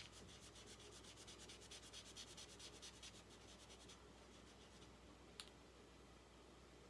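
Faint, quick scratching of a gold Posca paint marker's tip rubbed back and forth on a small block, about ten strokes a second, stopping about four seconds in. A single short click follows a little later.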